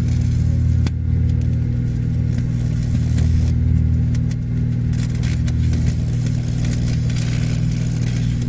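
Microwave oven running with a mobile phone inside: a steady, loud electrical hum with a few sharp snaps, the first about a second in.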